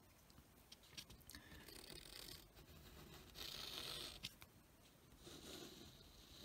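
Faint scratching of a pen drawing lines on paper, in about three strokes of roughly a second each, with a few light clicks.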